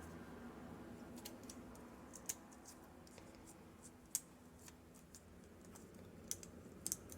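Faint, scattered light clicks and taps of small carburettor parts, diaphragms and their plates, being handled and laid against each other, with the loudest taps about two and four seconds in and a few more near the end.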